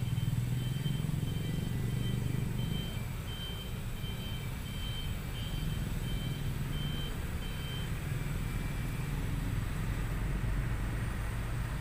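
A vehicle's reversing beeper sounding in an even series of short high beeps over a steady low engine rumble; the beeping stops about eight seconds in.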